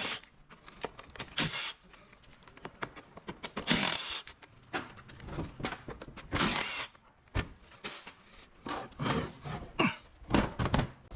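Irregular clinks, knocks and scrapes of hand tools and metal parts as a 48RE automatic transmission is worked on at the bench, its overdrive housing bolts coming out and the case being handled. A few half-second scraping sounds stand out among the knocks.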